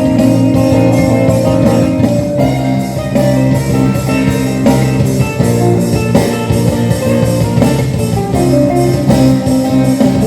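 Live band playing the instrumental closing bars of a rock song, with guitars strumming steady chords over a regular beat and no singing.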